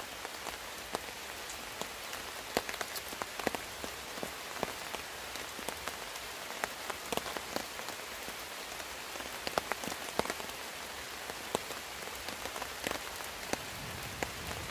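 Light rain falling steadily through the night, with scattered single drops ticking close by at irregular moments.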